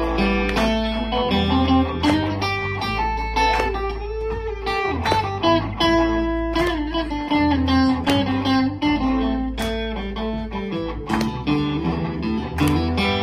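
Live band music led by electric guitar playing a riff, with acoustic guitar strumming underneath and a steady low bass.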